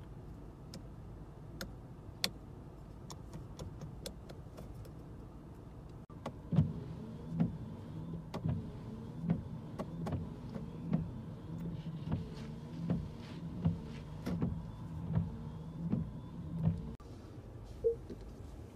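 A few sharp clicks, then an electric motor in the car runs for about eleven seconds with a regular thump roughly every 0.8 s before it stops.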